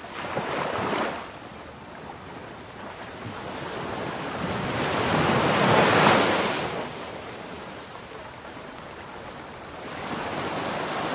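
Ocean waves washing, with wind: a steady rush of sea noise that swells and fades, loudest about six seconds in.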